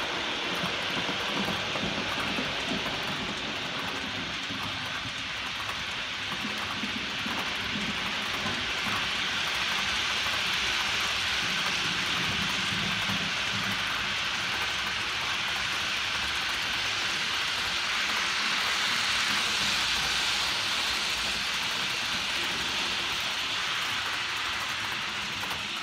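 Model freight wagons rolling along model railway track: a steady rattling hiss of small metal wheels on the rails as a long intermodal train passes. It grows a little louder in the middle and eases near the end as the last wagons move away.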